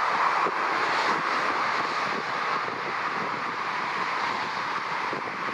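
Steady rushing noise of motorway traffic passing close by, an unbroken wash of tyre and engine noise.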